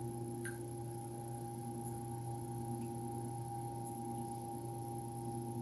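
Steady electrical hum made of several fixed tones, with a faint click about half a second in.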